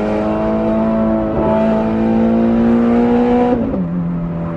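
Ferrari F430 Scuderia's straight-piped V8 heard loud from inside the cabin, pulling steadily higher in one gear. About three and a half seconds in it drops in pitch as it shifts up, then runs on at lower revs.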